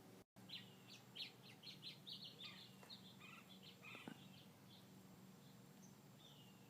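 Quail calling faintly: a quick run of short, high chips and clucks over the first few seconds, then a single downward-sliding call near the end.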